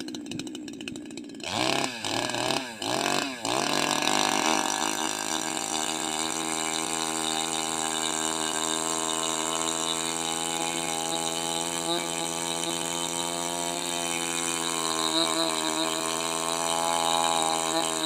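Two-stroke petrol chainsaw revved in three or four quick bursts, then running at a steady speed.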